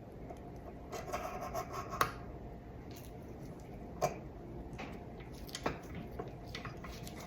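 Small metal parts of a stand mixer's gear assembly being handled and rubbed as a snap ring is fitted with snap-ring pliers, with a few sharp clicks about two, four and five and a half seconds in.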